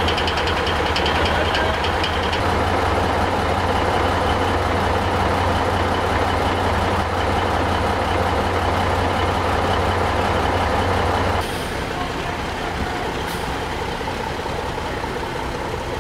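Diesel engine of an ex-military six-wheel-drive fire truck idling steadily, with a light fast ticking over it for the first couple of seconds. About two-thirds of the way through, the sound drops suddenly to a quieter, more distant vehicle sound.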